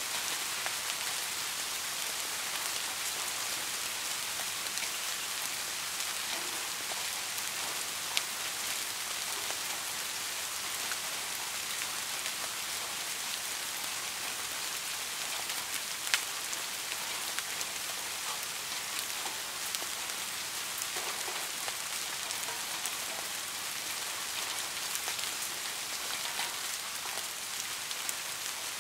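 Steady rain: a dense, even hiss of falling drops with many small sharper ticks, and two brief clicks, about eight and sixteen seconds in.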